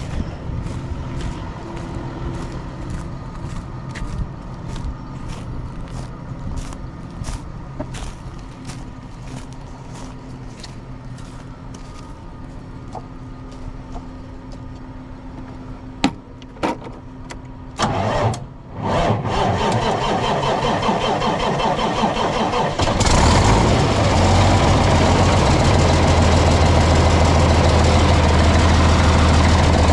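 Pumper trailer's engine cold-cranking slowly for about sixteen seconds, roughly two or three compression strokes a second, on a night well below freezing. After a couple of stutters it catches and runs, then picks up to a steady, louder run near the end.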